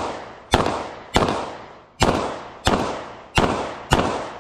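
Rapid pistol shots from an Bul SAS II UR Open-division race pistol during a stage run: six shots in about three and a half seconds, each followed by a ringing echo tail.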